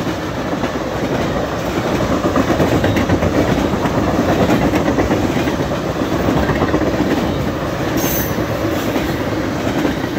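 Freight cars of a long manifest train rolling past at speed, a steady loud rumble of wheels on rail.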